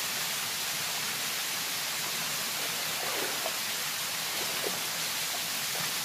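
Waterfall pouring steadily into a rock pool. About halfway through come a few faint splashes of someone wading through the water.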